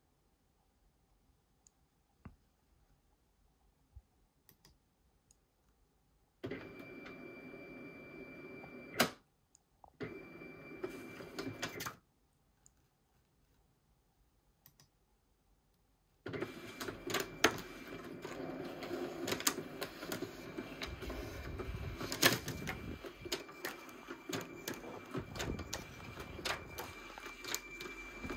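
Canon imageFORMULA R40 sheet-fed document scanner feeding and scanning: its motor whirs with a steady high whine in two short runs of about two seconds each. After a pause of about four seconds it runs continuously, with quick clicking as the sheets pass through.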